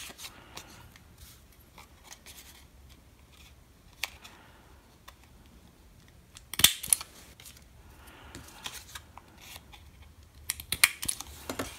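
Small handheld hole punch squeezed on paper, clicking as it punches through: a sharp snap about two-thirds of the way in and a quick run of clicks near the end.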